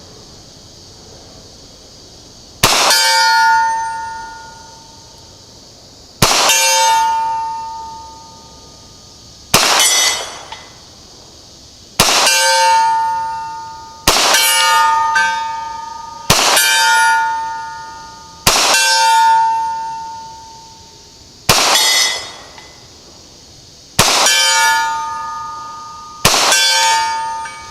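Ten 9mm shots from a Ruger PC Carbine, each followed by the ring of the bullet striking an AR500 steel target, every ring fading over a second or two. The shots come irregularly, about two to three seconds apart, and two of them ring at a higher pitch.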